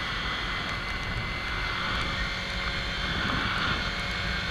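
Kawasaki Ninja 300's parallel-twin engine running at a steady speed while riding, under a constant rush of wind and wet-road noise.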